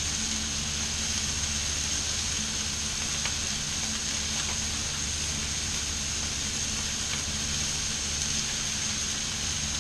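Salmon fillets, chicken and diced vegetables sizzling steadily on a griddle, with a few faint clicks from a spatula working the fish.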